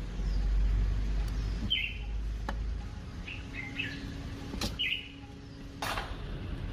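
Birds chirping, a few short chirps a second or so apart, with a low rumble through the first half and several sharp clicks or knocks.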